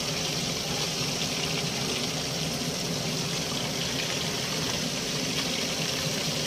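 Hot oil sizzling steadily around batter-coated chicken pieces in a wok, during the second, final fry on a low flame.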